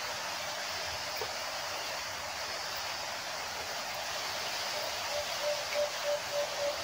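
White-eared brown dove (alimokon) cooing: a run of short, evenly spaced notes at one pitch, about three a second, starting about five seconds in. Under it is a steady hiss of forest background.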